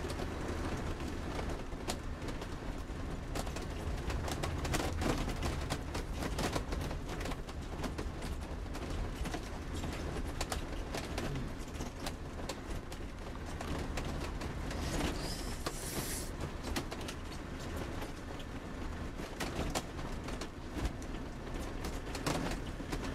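Large motorhome driving slowly along a rough, narrow lane, heard from inside the cab: a steady low engine and road rumble with frequent small clicks and rattles, and a brief hiss about fifteen seconds in.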